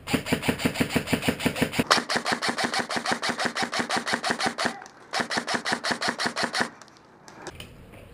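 Airsoft electric rifle firing on full auto as a rapid, even clatter of shots: one long burst of about four and a half seconds, a brief break, then a second burst of nearly two seconds.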